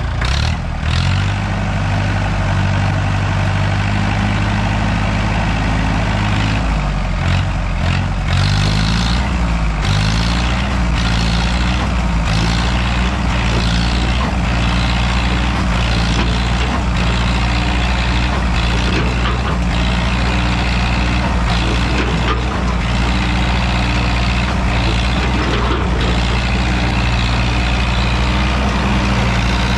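Old tractor's engine running under load as the machine is rocked back and forth to climb out of a hole. Its pitch wavers up and down a few times about a quarter of the way in, then it runs steadily.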